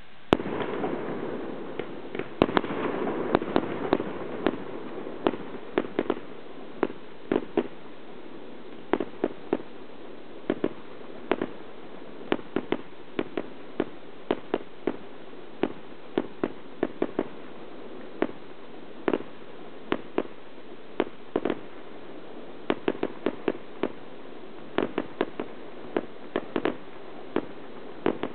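Fireworks display: a dense rush of noise for the first few seconds, then a steady run of sharp bangs from bursting shells, often in quick pairs or clusters, about two a second.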